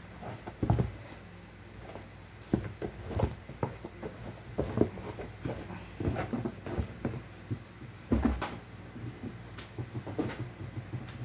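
Household objects being handled and put away while tidying a room: irregular knocks, taps and light clatter, with louder thumps near the start and about eight seconds in.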